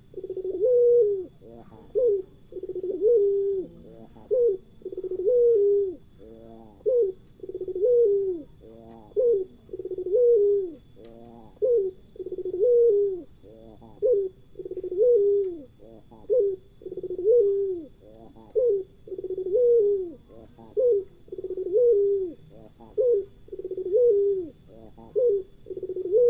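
Puter pelung dove cooing over and over: low, rolling coos about once a second, some drawn out and some short. Faint high chirps from a small bird come in twice.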